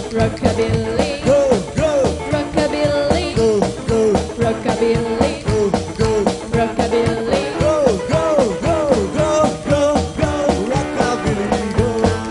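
Live rockabilly band playing a fast song: upright double bass, electric guitar and drum kit with sung vocals over a steady, driving beat.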